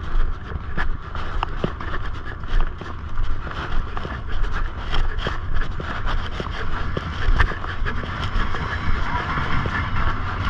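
Tractor-trailer's diesel engine running steadily, with scattered clicks and rattles over the rumble.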